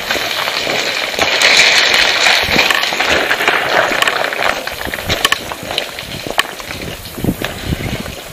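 Crackling, rustling noise scattered with irregular sharp clicks and snaps, heaviest in the first half.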